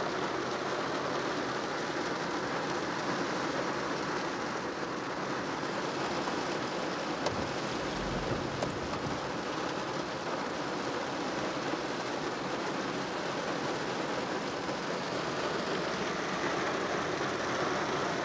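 Heavy rain falling on a car's roof and windshield, heard from inside the car as a steady, even hiss.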